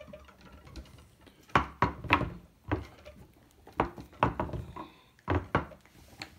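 Wooden rolling pin knocking and thudding against a wooden cutting board while stiff modelling clay is rolled out: about nine sharp, irregular knocks, several in quick pairs.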